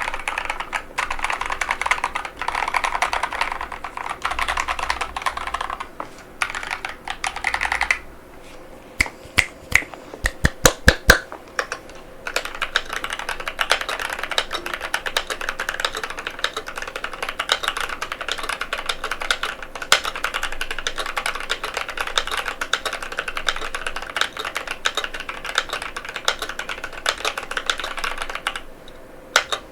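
Fast typing on an aluminium NovelKeys NK87 mechanical keyboard with KTT Matcha tactile switches, a dense run of key clicks. About eight seconds in the flow stops for some four seconds, filled by a string of separate louder single key strikes, then the steady typing resumes.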